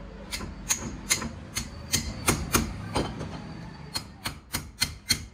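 Sharp metal clicks and taps, irregular, about two or three a second, as metal parts of a hydraulic jack are handled and fitted together.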